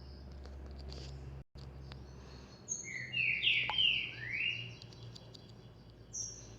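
Bird chirping: a quick run of four or five rising chirps about three seconds in, over a faint low hum and a few light clicks.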